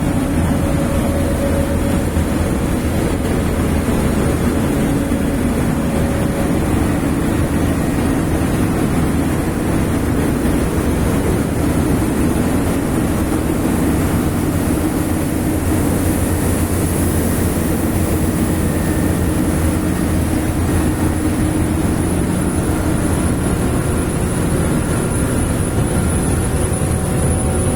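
Diesel-engined portable air compressor running steadily at a constant speed, with a continuous low engine drone.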